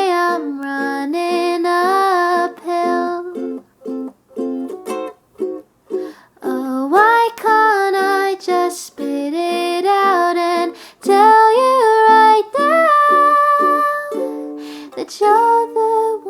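Music: a song with plucked ukulele accompaniment and a voice carrying the melody without clear words.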